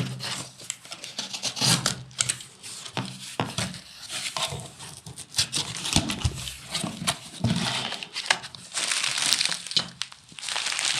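Plastic packaging crinkling and rustling irregularly, with sharp crackles and soft bumps, as bags of fishing groundbait are handled and pulled out of their cut-open wrapping.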